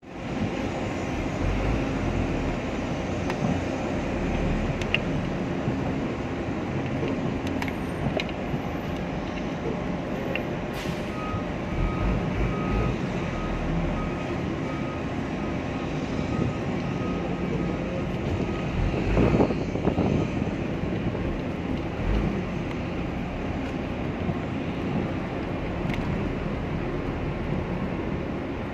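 Steady rumble of heavy vehicles and engines with outdoor background noise; a vehicle's reversing alarm beeps about twice a second for several seconds, starting about a third of the way in.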